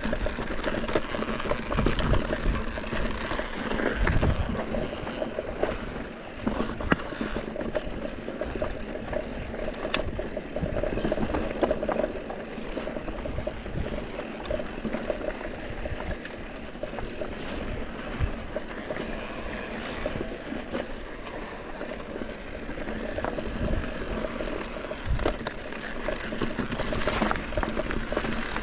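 Mountain bike descending a rough trail: continuous rolling noise of the tyres on dirt and stone, with rattling from the bike and a few heavier knocks over bumps.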